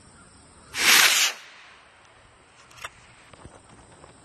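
Estes model rocket motor igniting and firing on launch: a short, loud rushing hiss about a second in that lasts about half a second, then trails off as the rocket climbs away.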